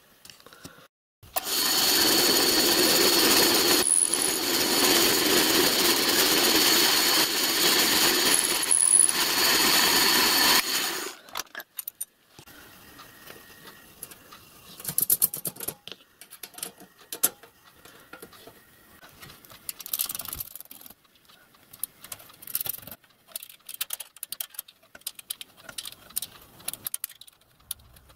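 Vertical milling machine running, its end mill taking a few thousandths off a brass angle bracket, steady for about nine seconds before it stops. Then light clicks and taps follow as the brass brackets and tank sides are handled and fitted.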